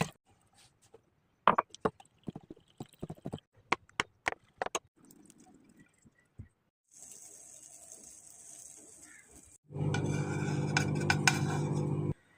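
Utensils clinking against glass and dishes, a series of separate sharp clinks. Then a soft hiss, and near the end a louder steady hum for about two seconds that cuts off suddenly.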